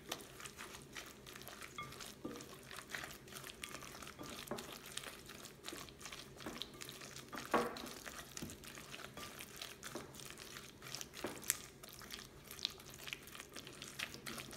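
Silicone spatula stirring and folding sliced vegetables into a wet chili paste in a glass bowl: soft, irregular squelching scrapes and small clicks, with a couple of sharper clicks about halfway and near the end.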